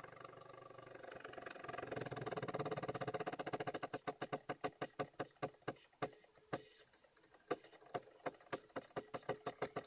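Stepper motors of a homemade CNC pen plotter whining steadily as they drive the axes, then one motor clicking in a quick even rhythm of about four to five clicks a second, with brief pauses. The owner ties the struggling motor to the torque lost at 1/16 microstepping.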